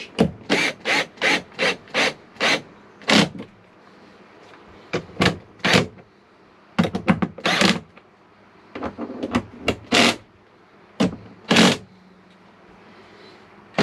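Wrench tightening the mounting bolts of a rooftop RV air conditioner: a run of short strokes about two a second, then scattered groups of strokes after a pause. The bolts are drawn down evenly to compress the closed-cell foam roof gasket to half an inch.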